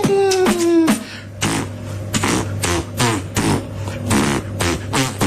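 Beatboxing: a falling pitched vocal sweep that ends about a second in, then a steady beat of mouth-made drum hits, several a second.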